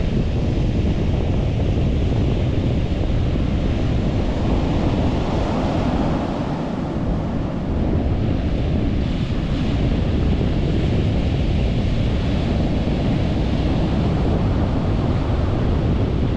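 Ocean surf breaking offshore and washing up a sandy beach, with wind buffeting the microphone as a steady low rumble beneath it.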